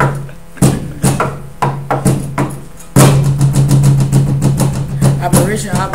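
Hip-hop backing beat: drum hits about twice a second over a steady low bass note, getting louder and busier about halfway through.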